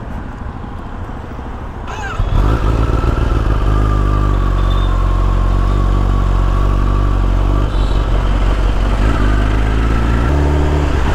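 Motorcycle engine getting louder about two seconds in, then running steadily under way, with a shift in its pitch near the end.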